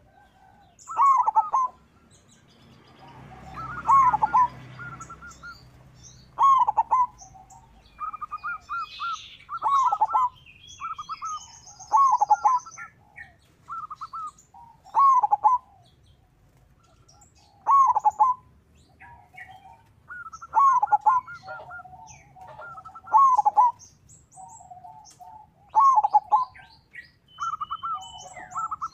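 Zebra dove (perkutut) singing its cooing song over and over, one phrase every two to three seconds. Fainter, higher chirps of other small birds and a brief rushing noise a few seconds in.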